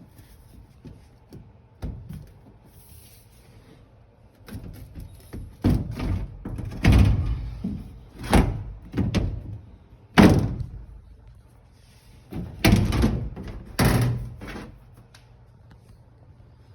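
Whirlpool Duet dryer's control panel console being pried and popped open: small clicks, then a run of loud knocks and bangs of the panel against the cabinet, spaced a second or so apart, from about five seconds in until near the end.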